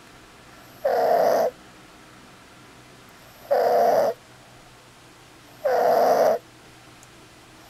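Stridor: a person's harsh, raspy noisy breathing, three breaths about two and a half seconds apart, each lasting under a second. Stridor is the sign of a narrowed upper airway.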